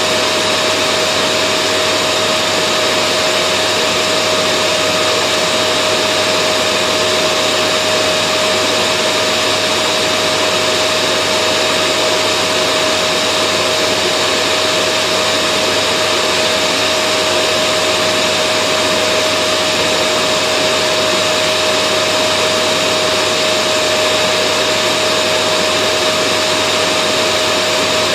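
Vacuum cleaner running steadily: an even rush of air with a constant whine on top, never changing in level or pitch.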